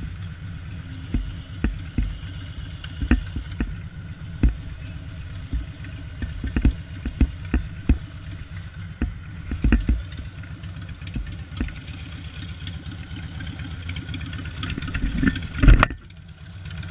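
Motorcycle engine idling with a steady low rumble, under frequent short knocks and bumps from the camera being handled. The biggest bump comes just before the end.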